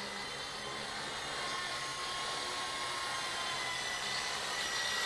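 Wltoys V912 fixed-pitch radio-controlled helicopter in flight: the steady high whine of its brushless main-rotor motor and spinning rotor. The pitch dips slightly midway and the whine grows a little louder toward the end.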